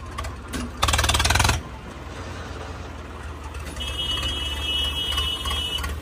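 Diesel tractor engine running close by with a fast, even beat, getting louder and harsher for about a second near the start. Later a steady high-pitched tone sounds for about two seconds.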